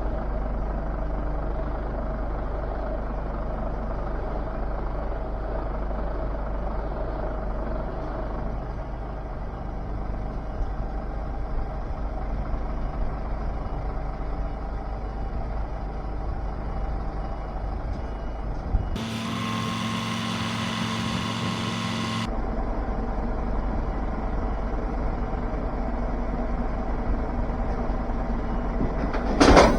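Heavy truck's diesel engine idling steadily. About two-thirds of the way in, a steady multi-pitched tone with hiss sounds for about three seconds, and a single loud knock comes near the end.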